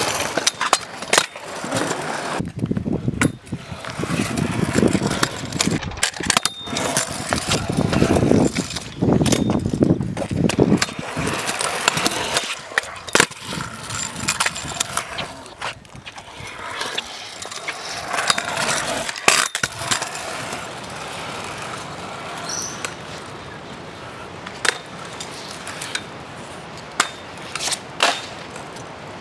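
Stunt scooter wheels rolling on concrete, with sharp clacks and knocks from landings and hits on the ramps at many points, and abrupt changes in the sound between clips.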